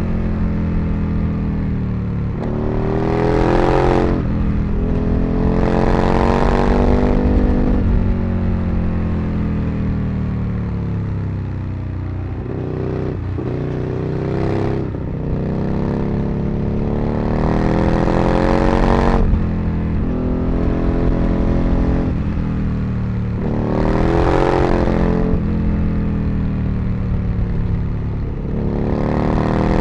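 Aprilia RSV Mille's 60-degree V-twin engine pulling hard several times, its pitch climbing with each pull and dropping away as the throttle is eased or the rider shifts, then climbing again.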